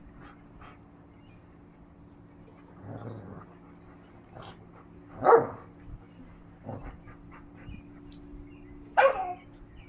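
Vizsla puppy giving two short barks in play, the first about five seconds in and the second near the end, with a few faint softer sounds between them.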